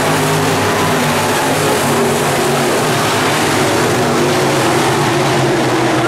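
A pack of dirt late model race cars' V8 engines running hard together, several engine notes overlapping in a steady din.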